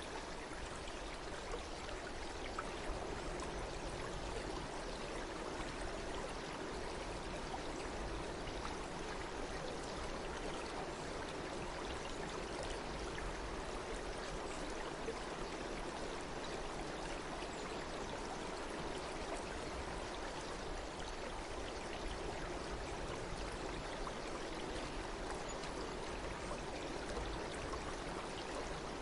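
A stream flowing steadily, water trickling and splashing without a break.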